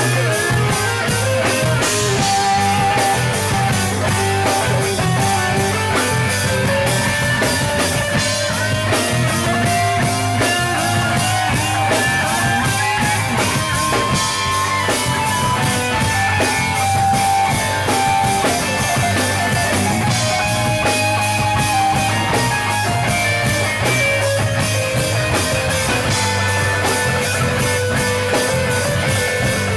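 Live rock band playing an instrumental passage: electric guitars over bass and a drum kit, with no singing. A guitar line slides up and down in pitch.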